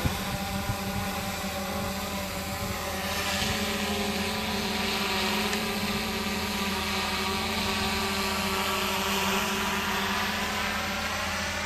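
Small quadcopter drone's propellers whining steadily in flight, with a rising hiss of air about three seconds in as the drone moves off.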